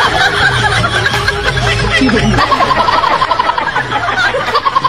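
Laughing, with a fast run of rhythmic laughs in the second half and music underneath.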